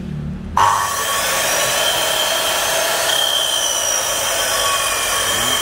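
Makita hand-held circular saw switched on about half a second in and running free without cutting: a steady motor and blade whine.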